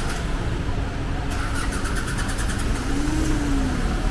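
A motor vehicle's engine running on a flooded street over a steady low rumble. Its pitch rises and falls briefly about three seconds in, after a quick run of fast, light ticks.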